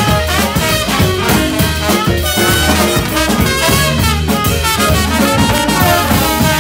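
Live soul band playing an instrumental passage: a horn section of trumpet, trombone and saxophone over a steady drum-kit beat and bass.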